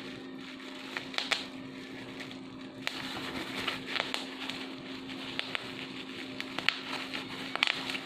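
Bubble wrap being popped and crinkled by hand: scattered sharp pops amid a crackle of handled plastic, denser from about three seconds in. A steady low hum lies underneath.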